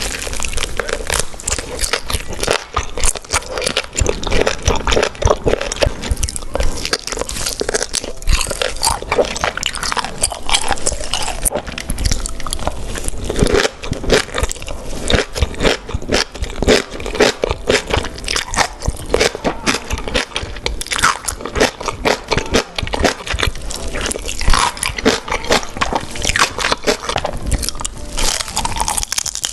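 Close-miked eating of beef large intestines: continuous biting and chewing that makes many rapid clicks and smacks.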